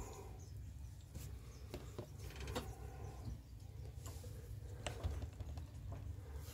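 Faint handling noise: soft rustles and a few light clicks as small doll clothes are picked up and held in the hand, over a steady low hum.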